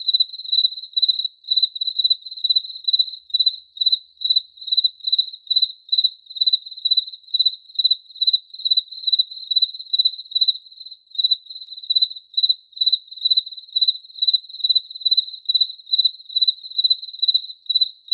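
A cricket chirping in an even, steady rhythm of about two to three high-pitched chirps a second, all on one pitch, with a brief pause around the middle.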